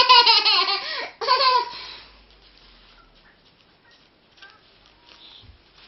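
A toddler laughing: a long, high-pitched laugh that falls in pitch and breaks off about a second in, then one more short laugh just after.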